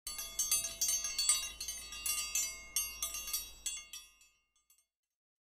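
Tinkling chimes: many quick, high metallic strikes ringing over one another, dying away about four seconds in.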